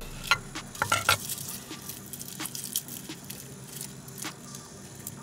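Garlic cloves crushed under the flat of a chef's knife on a wooden cutting board, giving a few sharp cracks and knocks in the first second. Then light crackling and ticking as the papery garlic skins are rubbed and peeled off by hand.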